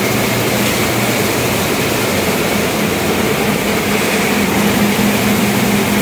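Single-phase compact multipass rice mill in operation: a loud, steady mechanical din from its electric motors, blower and milling machinery, with a steady low hum.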